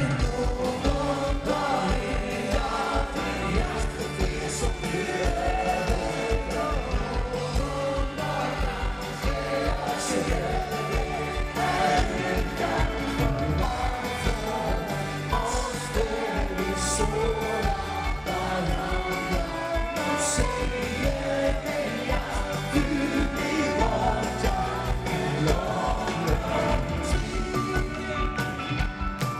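Live pop-rock song: a male singer singing over a full band with a steady drum beat, recorded from inside the audience.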